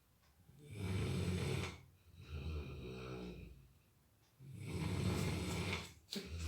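Sleeping Labrador snoring: two loud snores about three and a half seconds apart, with a softer, pitched breath between them.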